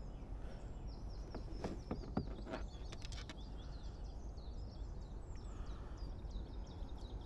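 Small birds singing in quick, repeated high chirps over a steady low outdoor background hum. There are a few sharp clicks between about one and a half and three seconds in.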